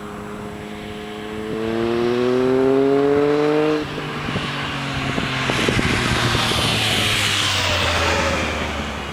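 2008 Triumph Tiger 1050's three-cylinder engine with a TOR aftermarket muffler accelerating hard, its pitch rising, then dropping sharply about four seconds in as at an upshift. It pulls on, passes close with the pitch falling, and fades as it goes away.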